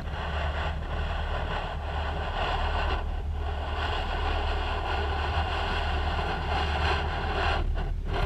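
Motor cruiser under way: a steady low engine drone under a broad rush of wind and water over the bow.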